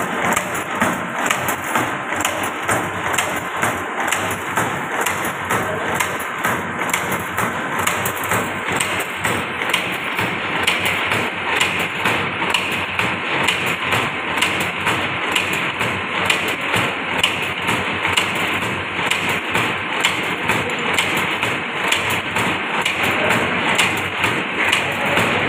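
Automatic S-hook making machine running, feeding wire and bending it into hooks: a fast, steady, rhythmic clatter of metal strokes.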